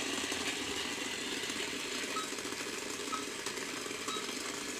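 Toy blender's small motor running with a steady buzz, with three short electronic beeps about a second apart in the second half.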